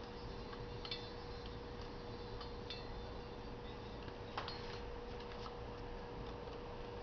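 A few light clicks and taps as a hand turns a motorcycle front wheel with its brake disc on a wheel stand, the sharpest about four seconds in, over a steady hum.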